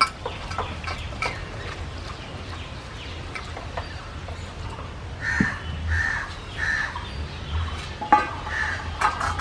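A hen clucking in short, evenly repeated calls from about halfway through, over light clinks of steel and water splashing as cut squash pieces are washed by hand in a steel pot, with water poured from a jug.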